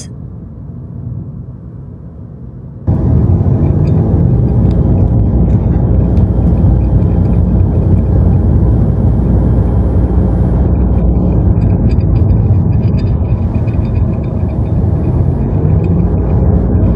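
A quiet low background for about three seconds, then a sudden cut to the loud, steady rumble of a car driving: engine and road noise.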